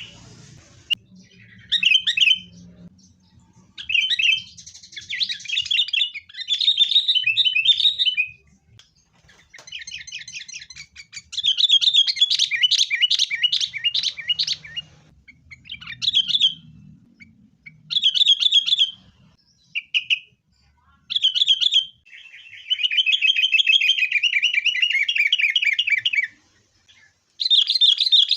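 Sooty-headed bulbuls (kutilang) calling noisily in repeated short bursts of chattering phrases, with two longer runs of rapid calling, one around the middle and one near the end. The title calls this agitated calling fighting (tarung).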